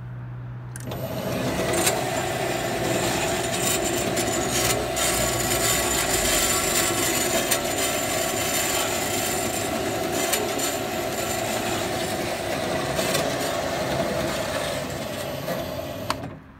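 Hitachi CB22FA2 metal-cutting band saw starting up when its run button is pressed, running steadily with a held hum and some rattle, then cutting off suddenly near the end when it is switched off.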